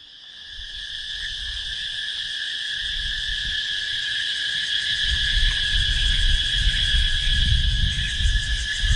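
Insects keeping up a steady, high-pitched drone that fades in over the first couple of seconds. From about halfway there is an uneven low rumble under it.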